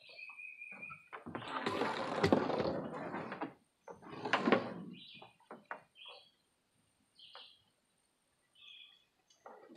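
Pressure washer's high-pressure hose being pulled in and coiled by hand, rubbing and dragging over wooden deck boards in two rushes, each with a sharp knock. Short high chirps sound in between.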